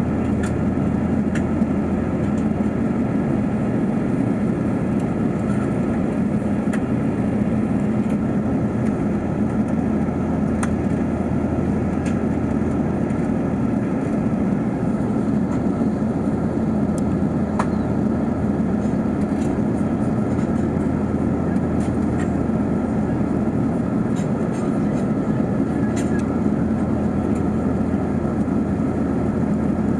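Steady rumble of engine and airflow noise inside an Airbus A380-800's economy cabin, unchanging throughout, with a few faint ticks on top.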